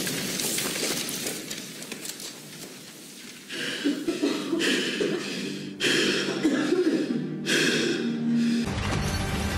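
Debris falling and settling, fading over the first three seconds. Then a man breathes hard four times in strain, each breath about a second long, as he forces his chi into a glowing fist.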